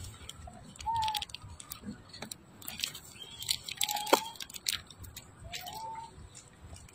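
Cardboard crackling and rustling as a baby macaque paws and scratches at a box, with three short high chirps about one, four and six seconds in.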